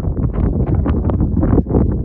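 Wind buffeting the microphone: a loud, gusty rumble that surges and drops several times a second.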